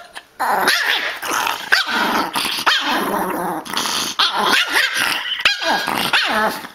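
Small Pomeranian dog growling and barking in a long, broken run of short, wavering calls.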